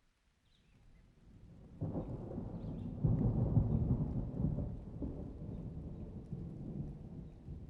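A roll of thunder: a low rumble builds from near quiet, breaks loud just under two seconds in, peaks around three to four and a half seconds in, then slowly dies away.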